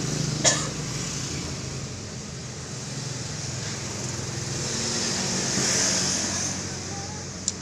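Steady hum and hiss of passing road traffic that swells about five to six seconds in, with a sharp click about half a second in and another near the end.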